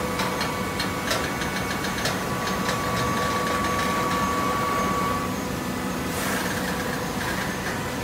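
TCM fully automatic horizontal hydraulic baler running, with a steady machine hum, a held whine that stops about five seconds in, rattling clicks over the first few seconds and a burst of hiss about six seconds in.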